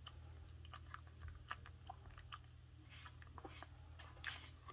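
Faint chewing and licking: scattered, irregular soft clicks over a low steady hum.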